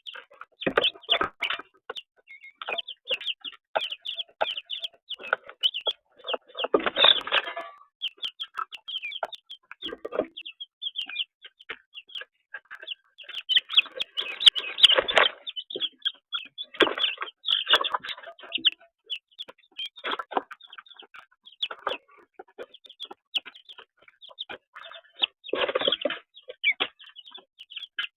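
Chickens clucking with many short chirping calls, and a few louder, rougher stretches about a quarter, a half and nine-tenths of the way through.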